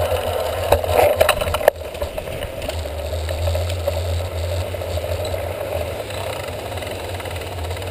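Mountain bike rattling as it rolls over a concrete path, heard through a seatpost-mounted camera, with dense clattering at first and a sharp clack just before two seconds in. After that it settles into a steadier, quieter rolling rumble.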